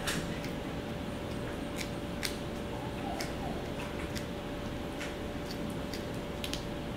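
Small puppy gnawing a hard Turkey Chew dog treat held in a hand: irregular sharp crunches and clicks of its teeth on the chew, about one or two a second, over a steady faint hum.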